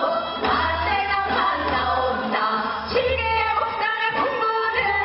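A woman singing Seodo sori, the folk song style of Korea's northwestern provinces, into a microphone, accompanied by a bowed haegeum fiddle and traditional wind instruments.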